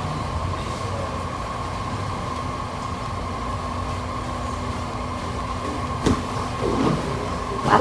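Steady low hum and rumble with a faint constant whine, broken by a short knock about six seconds in.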